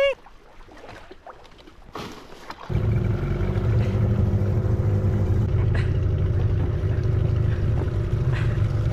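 A few seconds of quiet open-air ambience, then abruptly a small outboard motor running steadily, pushing an inflatable dinghy across the water.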